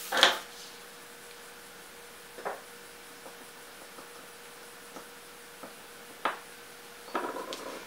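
A sheet of watercolour paper swept across the desk with a brief rustle, followed by a few light, separate clicks and taps of brush handles being handled.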